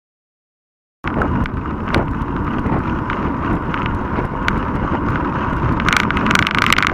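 Wind buffeting the microphone of a handlebar-mounted action camera on a moving mountain bike, a loud, steady rumble that starts abruptly about a second in, with scattered sharp knocks and rattles from the bike and handlebar mount over the road, coming thicker near the end.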